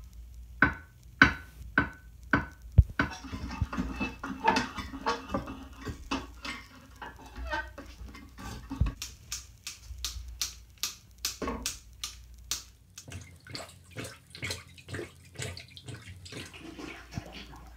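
A few ringing metal clinks of a wrench against a porcelain toilet, then a long run of quick, regular wet splashes and sloshes as a plunger is pumped in the toilet bowl.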